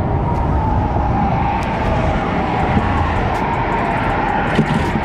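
Steady noise of road traffic and tyres on the bridge, with a faint wavering tyre whine. A few light knocks come near the end.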